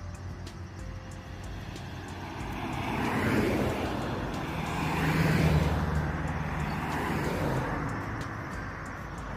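Road traffic: cars passing on a nearby street, the noise swelling to a peak about three and a half seconds in and again about five and a half seconds in, then fading, over a steady low hum.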